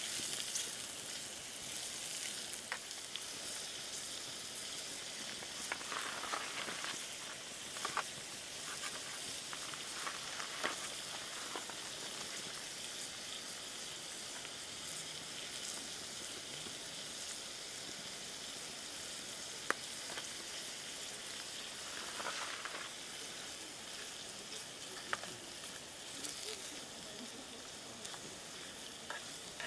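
Food sizzling as it fries, a steady hiss with scattered pops and crackles.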